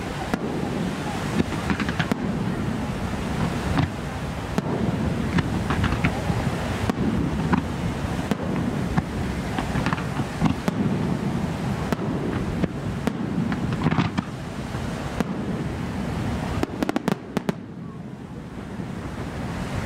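Fireworks display: aerial shells bursting with repeated bangs over a steady background rush. A rapid string of sharp cracks comes about seventeen seconds in.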